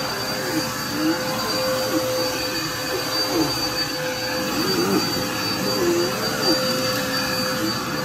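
Small red bagless upright vacuum cleaner running steadily as it is pushed back and forth over rugs, a constant motor whine with a fixed high pitch.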